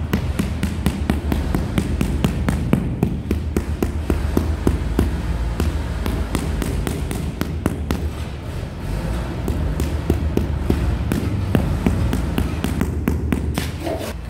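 Rubber mallet tapping a large ceramic floor tile over and over to bed it down into the wet mortar beneath: a quick, uneven run of dull knocks, several a second, easing off briefly a little past the middle.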